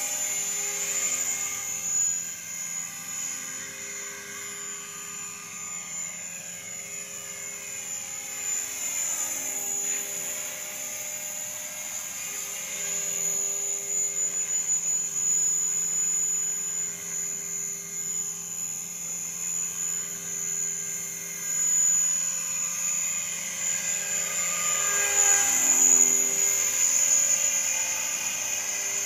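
Align T-Rex 500 radio-controlled helicopter in flight: the steady buzz of its spinning rotor blades with a constant high motor whine. It swells loudest as the helicopter passes close, near the end.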